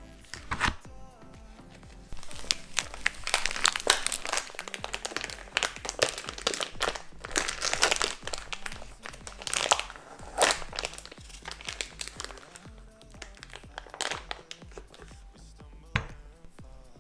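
Clear plastic packaging crinkling and tearing as it is pulled open and peeled off a block of bacon, with a dense run of crackles from about two seconds in to about eleven seconds and single sharp crackles near the start and the end. Background music plays underneath.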